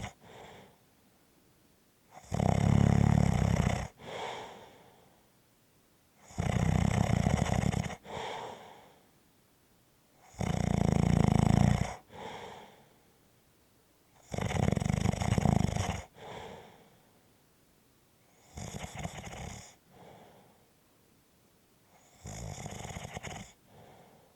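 Snoring in a slow, even rhythm: six loud snores about four seconds apart. Each snore is followed by a shorter, softer breath sound.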